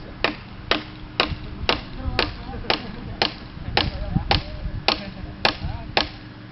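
A hand tool striking repeatedly in an even rhythm: sharp blows, about two a second, that stop about six seconds in.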